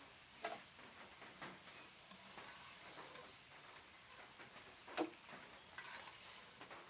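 Potato strips deep-frying in hot oil in an iron wok, a faint steady sizzle, with a perforated metal skimmer clinking and scraping against the pan a few times, the loudest knock about five seconds in.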